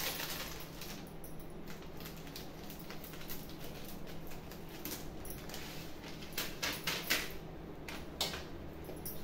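Scattered crisp rustles and light clinks from hands handling spices and sprinkling chilli powder over chopped mango in an aluminium bowl, a burst of them about six to seven seconds in and another near eight seconds, over a steady low hum.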